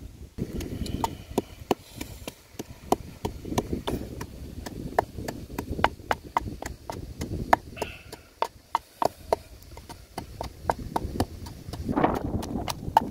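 Wooden pestle pounding chili and garlic in a wooden mortar: a steady run of dull wooden knocks, several a second.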